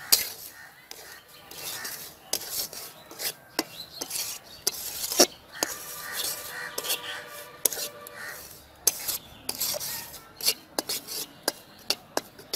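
Metal spatula scraping and stirring semolina in a metal kadai: irregular rasping scrapes and sharp clicks of the spatula against the pan.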